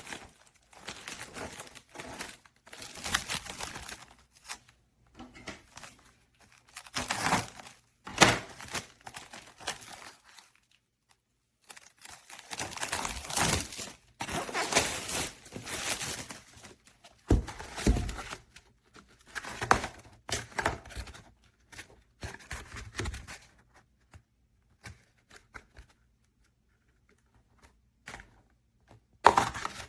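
Crinkling and tearing of packaging, as from a pack of paper plates being opened and handled. It comes in irregular bursts a second or two long, with a couple of sharper knocks.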